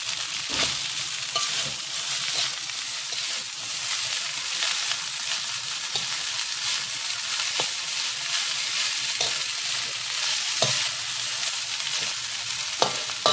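Rice stir-frying in a wok: a steady sizzle, with a spatula scraping and knocking against the pan every second or two as the rice is turned, one sharper knock near the end.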